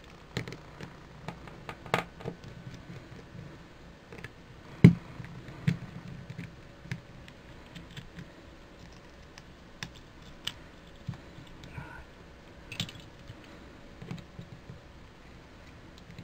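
Hand tools and a hair straightener's plastic plate holder clicking, tapping and scraping as the holder is prised apart with a screwdriver on a workbench mat. Scattered sharp clicks throughout, the loudest about five seconds in.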